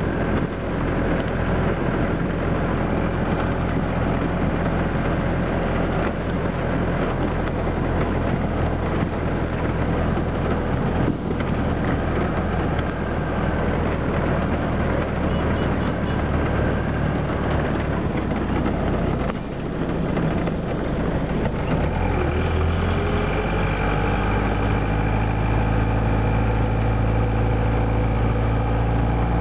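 Engine of a wooden-bodied truck bus running steadily on the move, heard from aboard, over an even road-noise hiss. About two-thirds of the way through the sound dips briefly, then the engine note returns stronger and rises slightly.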